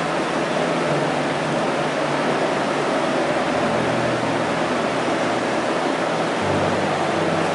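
Electric train standing at a platform with its equipment running: a steady rushing noise over a low hum, the hum shifting in pitch about six and a half seconds in.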